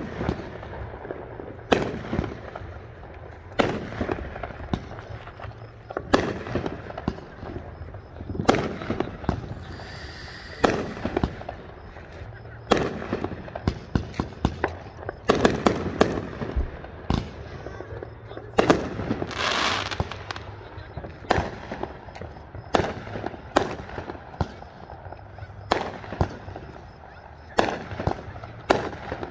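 Aerial fireworks exploding, a sharp bang every second or two, with a longer hissing rush about two-thirds of the way through.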